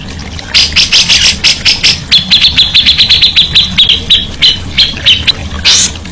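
A songbird calling: quick rough chattering notes, then a fast run of sharp notes, about nine a second, that slows and breaks up before stopping. A low steady hum sits underneath.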